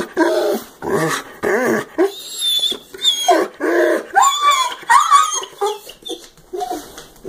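A dog wearing a plastic cone collar is 'talking': a run of short moaning grumbles and whines, one after another, each rising and falling in pitch. It is the dog complaining, really not happy about the cone.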